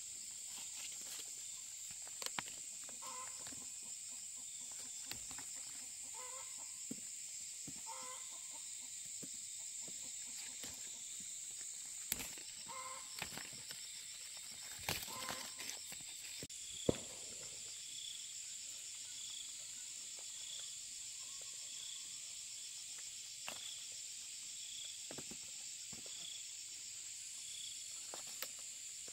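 Chickens clucking in short calls, in a few small groups during the first half, over a steady high insect drone. Scattered sharp knocks come through, the loudest about 17 seconds in. After that a faint chirp repeats about once a second.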